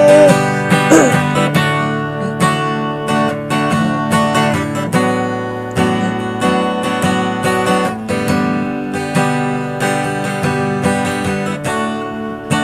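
Acoustic guitar strummed in a steady rhythm of chords, without singing; a held sung note ends just as it begins.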